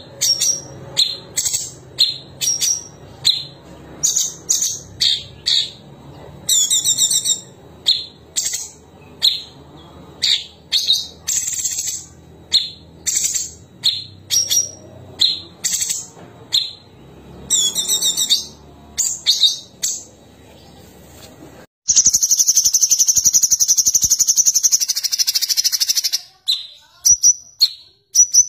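Male orange-bellied leafbird (cucak cungkok) singing: a run of short, sharp, high whistled notes, about one or two a second, some falling in pitch. About 22 seconds in comes a loud, continuous rapid high trill lasting about four seconds, the rolling 'ngerol' song prized in contest birds. It is followed by a few more sharp notes.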